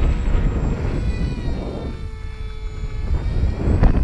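XK A1200 electric RC glider's motor and propeller whining during a low fly-past, the pitch falling slightly as it goes by, over a strong low rumble of wind on the microphone. There is a short click near the end.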